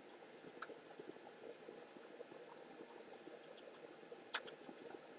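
Near silence: faint room tone with a few small clicks, the sharpest one about four seconds in.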